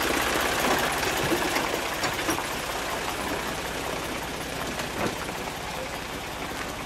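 Ford farm tractor's engine running as it pulls a loaded passenger wagon past and away, the sound steadily fading. A single knock about five seconds in.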